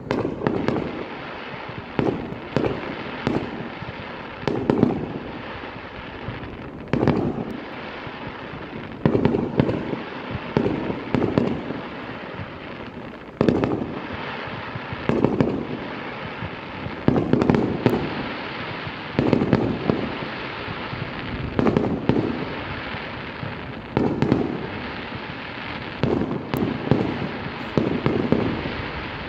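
Aerial fireworks display: shells bursting one after another, with a sharp bang roughly every one to two seconds over a steady noisy background.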